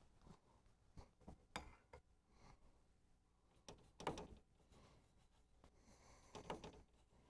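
Faint taps and scrapes of a paintbrush working paint in a watercolour palette: three short taps in the first two seconds, then two louder scrubbing strokes about four and six and a half seconds in.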